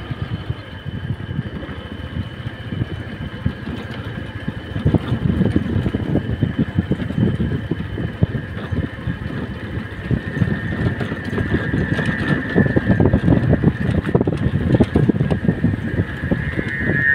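Motorcycle running on the move, with a low, uneven rumble that gets louder about five seconds in. A steady high-pitched tone sounds over it and grows stronger near the end.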